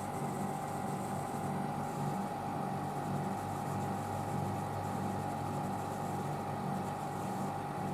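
Haier window air conditioner running: a steady hum with a constant mid-pitched whine.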